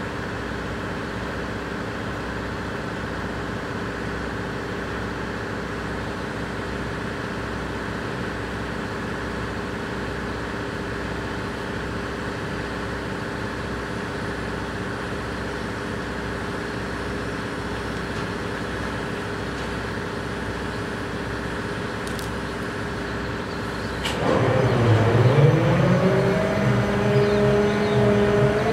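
EMD GP38-2 diesel-electric locomotives idling with a steady hum. About 24 seconds in, an engine throttles up and gets markedly louder, its pitch dipping and then climbing as the locomotives load up to start the train moving.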